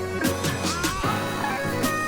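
Background music: a guitar-led rock track with a steady beat.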